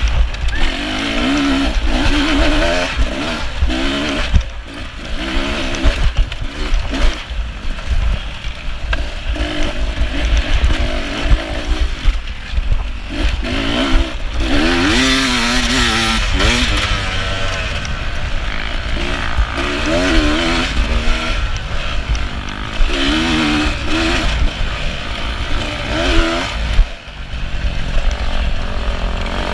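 Beta 300 RR two-stroke single-cylinder dirt bike engine ridden hard, its pitch rising and falling over and over with the throttle and gear changes. Sharp knocks and clatter from the bike come through over rough ground.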